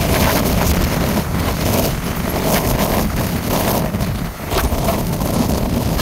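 Jet engines of a departing airliner at takeoff power: a loud, steady rumble, with the jet blast gusting across the microphone. The level dips briefly about four seconds in.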